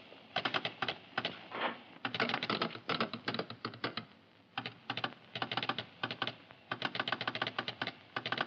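Mechanical keys struck in quick runs of sharp clicks, broken by short pauses.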